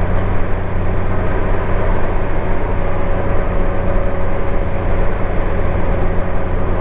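Honda Gold Wing motorcycle riding at a steady speed: a steady engine hum mixed with wind and road noise.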